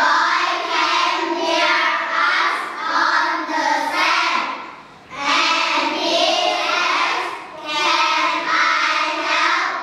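A children's choir singing together in unison, two sung phrases with a short breath between them about halfway through.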